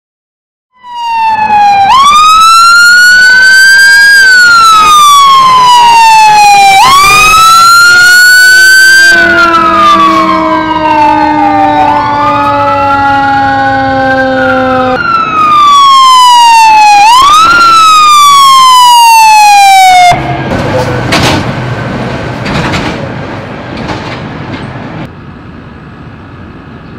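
Emergency vehicle siren wailing very loud, its pitch sweeping up and down repeatedly, with a second, slower falling tone beneath it. About two thirds of the way through the siren cuts off, leaving quieter engine and street noise with a few knocks.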